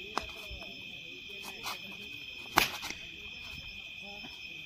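A wooden cricket bat cracks once against a hard plastic ball about two and a half seconds in, striking it for six. Night insects chirr steadily throughout, with faint voices underneath.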